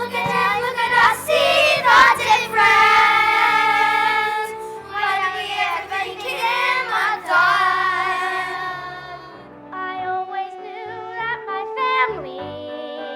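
Young voices singing a show tune over musical accompaniment, with long held notes; the singing falls away about nine seconds in, leaving the accompaniment playing.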